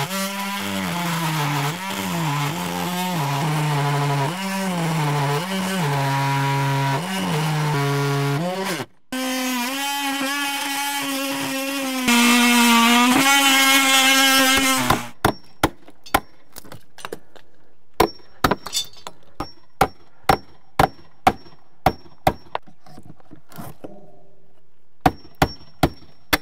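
Cordless oscillating multi-tool (Ryobi 18V) plunge-cutting into rotted wooden door trim and jamb, its pitch dropping each time the blade bites and recovering as it eases off, with a short stop about nine seconds in. It falls silent around fifteen seconds, and a string of separate sharp taps and knocks follows.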